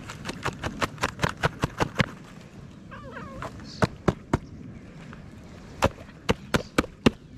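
A can of cat food tapped and handled, giving a quick run of sharp taps, about six a second, then two looser groups of taps later on. A cat meows once about three seconds in.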